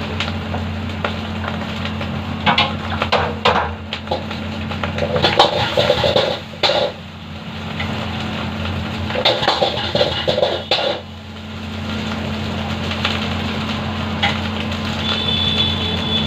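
A metal ladle or spatula clanking and scraping against a wok while fried rice is stir-fried, in three bursts of clatter, over a steady low hum of kitchen machinery such as a burner or exhaust.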